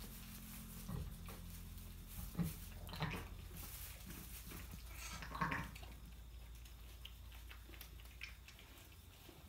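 Sheep bleating faintly, two short calls about three and five and a half seconds in, over a low steady hum that fades out partway through, with a few soft knocks.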